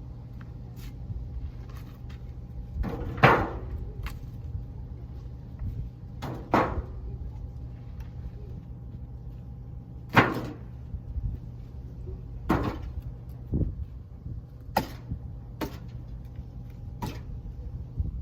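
Split firewood pieces knocking and clunking one after another as they are thrown into a wood furnace's firebox, about eight knocks at uneven intervals and coming faster in the second half, over a steady low hum.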